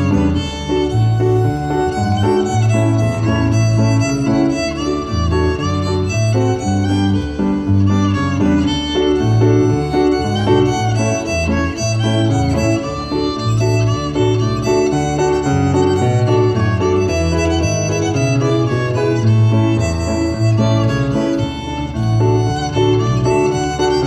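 Live fiddle tune played on a violin, with piano accompaniment keeping a steady rhythm of low bass notes underneath.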